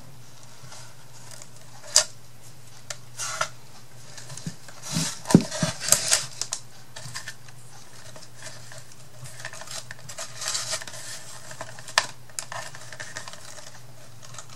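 Clicks, taps and rustles of craft materials being handled and pressed down on a work table: a sharp click about two seconds in, a busy cluster of knocks and rustles around five to six seconds, another sharp click near twelve seconds. A faint steady low hum lies underneath.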